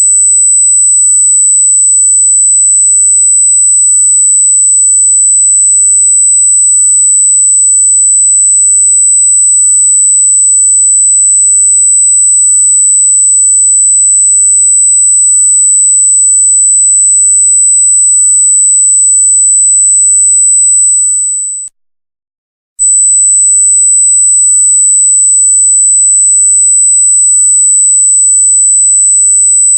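A loud, steady, very high-pitched pure electronic tone held at one pitch. About two-thirds of the way in it fades out and stops for about a second, then starts again abruptly.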